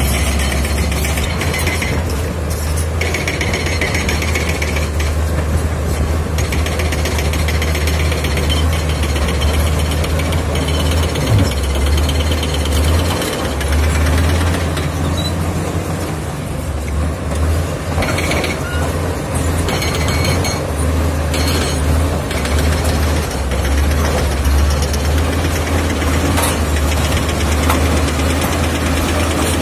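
Komatsu D85 bulldozer's diesel engine running hard as the dozer pushes broken rock, with a heavy, steady low drone and bursts of clattering now and then.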